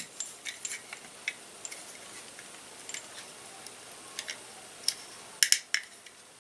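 Small clicks and taps of pistol parts being wiggled into a Glock 43 frame during reassembly. The clicks are scattered, with a quick cluster of louder ones near the end.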